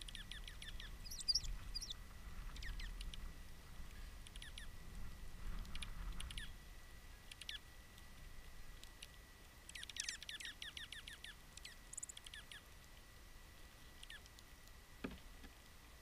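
Small songbirds calling with short, downward-slurred notes, some single and some in quick runs, the busiest a rapid string of about eight notes about ten seconds in. A single knock near the end.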